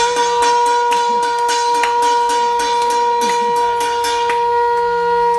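A conch shell (shankh) blown in one long, steady, unwavering note. Over it runs rhythmic clapping and striking at about three beats a second, which thins out in the middle.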